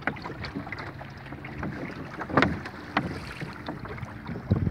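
Water slapping and splashing against the hull of a small wooden rowboat moving under sail, with wind on the microphone. There are two louder thumps about halfway through.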